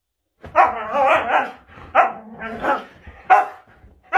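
Siberian husky 'talking': four drawn-out, pitch-bending moans and grumbles, the first and longest about half a second in, then three shorter ones, aimed at the other husky in play.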